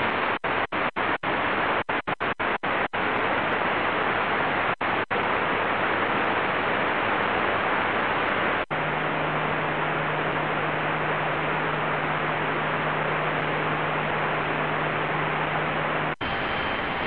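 Shortwave static hissing from a Qodosen DX-286 portable receiver's speaker as it is tuned across the high shortwave bands with no station on frequency. The hiss is cut by a quick string of brief dropouts in the first few seconds and a few more later on. A low steady hum joins it about nine seconds in.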